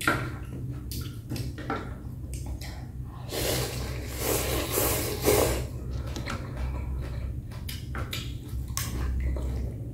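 Close-up eating sounds: slurping rice noodles and chewing, with many small wet clicks. One long slurp runs from about three and a half to five and a half seconds in.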